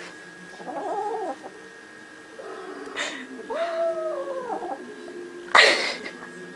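A cat meowing twice, two drawn-out calls that rise and then fall in pitch. A sharp knock near the end is the loudest sound.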